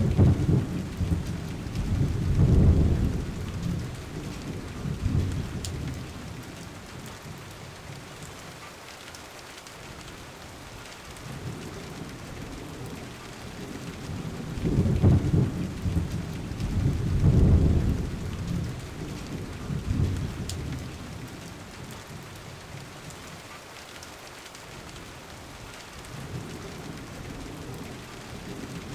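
Steady rain with low rumbles of thunder that swell and fade several times, in two clusters: one at the start and one about halfway through.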